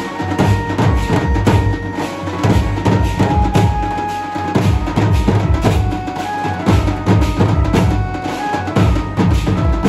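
A band of large, stick-beaten drums playing a fast, dense rhythm, with a melody of held notes running over the drumming.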